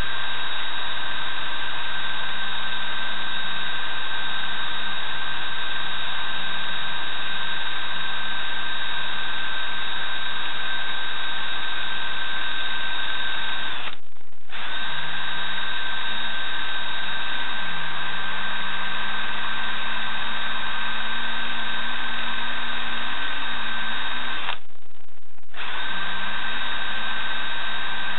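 Cordless drill running a pad-and-bristle-brush attachment against the copper windings of a brushless motor's stator, scrubbing off green copper oxidation. It gives a steady whine whose low pitch wavers a little, and it breaks off twice for about a second.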